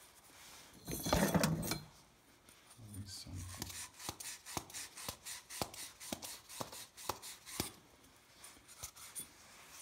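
Tools and parts being handled during a heating repair: a brief rustling scrape about a second in, then a run of sharp clicks and knocks, roughly two a second.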